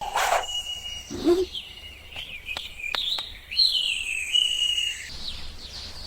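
Birds chirping and whistling, a string of short high calls gliding up and down, with a lower rising call about a second in and a few sharp clicks near the middle.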